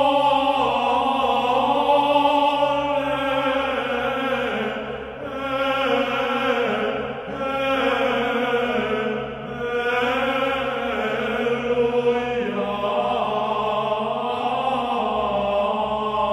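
Slow chanted singing of a devotional prayer, with long held notes in phrases that break every few seconds.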